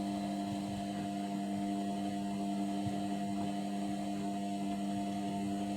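Indesit washing machine's motor turning an overloaded drum at distribution speed to spread the washing before the spin: a steady hum with a constant pitch.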